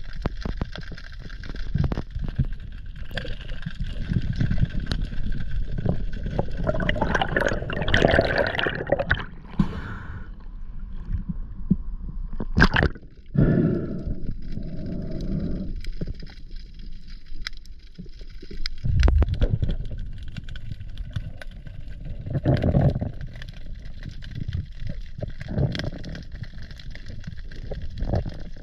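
Underwater sound heard through a diver's action camera: water gurgling and sloshing against the housing, with surges of bubbling, scattered knocks and scrapes, and a sharp click about halfway through.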